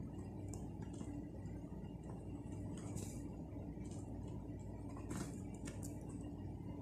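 Kittens' claws scrabbling on a plush fabric cat bed: faint, scattered scratches and rustles over a steady low hum.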